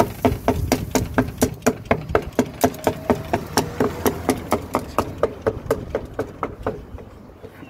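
Knife chopping grilled kokoreç (lamb intestines) on a cutting board: a fast, even run of knocks, about five a second, that stops near the end.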